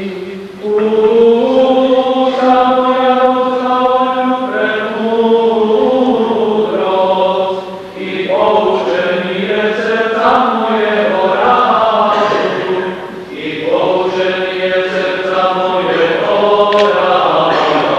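Byzantine-rite liturgical chant sung by voices, with long held notes and brief breaks between phrases.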